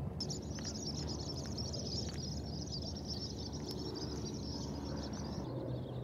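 Birds chattering in a continuous high-pitched wash that stops near the end, over a steady low background rumble.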